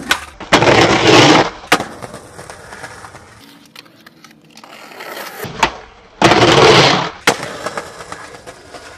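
Skateboard tricks, twice: a sharp pop of the board, about a second of loud scraping as it slides along the ledge, then a clack as it lands.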